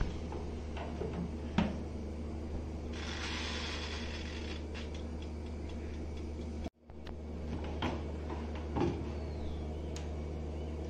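Glass door of a Prestige countertop oven clacking shut, followed by light clicks and handling of the oven's controls, over a steady low hum.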